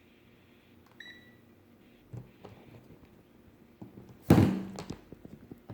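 A short electronic beep about a second in, typical of a digital multimeter. A few seconds later comes a single loud knock from equipment being handled on the bench.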